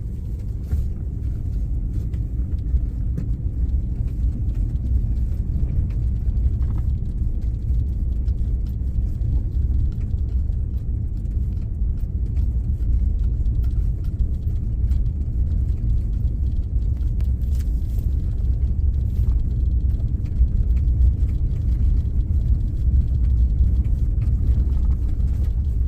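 Four-wheel-drive vehicle's steady low rumble heard from inside the cab, with a few faint clicks scattered through it.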